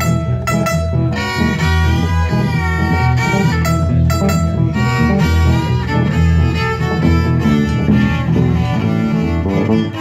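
Live country band playing an instrumental break: a fiddle carries the lead melody over electric guitar and a steady low bass line.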